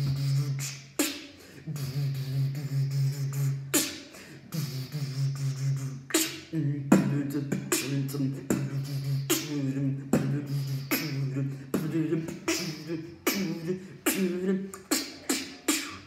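A person beatboxing: a steady low hummed bass note, held for long stretches with short breaks, under sharp mouth-made kick and snare hits.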